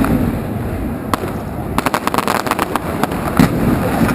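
Fireworks going off: sharp bangs and crackles, thickest in a quick cluster in the middle, over a steady low rumble.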